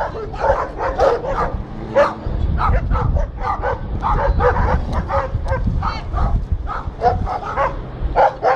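Dogs barking rapidly and repeatedly, several barks a second, at a brown bear close by.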